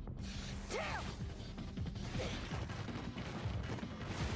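Anime fight-scene soundtrack: a dense run of crashes, clatter and impacts over low music.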